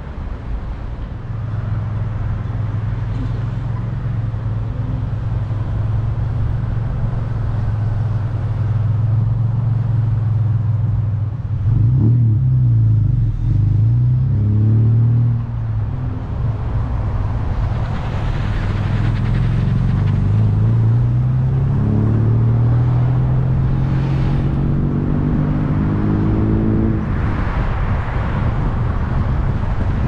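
Car engine and road noise while driving: a steady low engine hum, a brief dip and rise in engine pitch about twelve seconds in, then the engine pitch climbing as the car accelerates, dropping away near the end.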